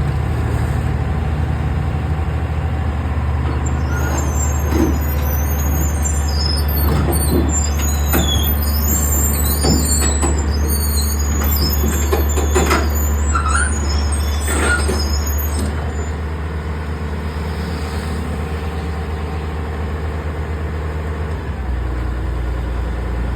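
A heavy diesel engine running steadily, with a burst of shrill metallic squeals and clanks for several seconds in the middle. The engine note shifts near the end.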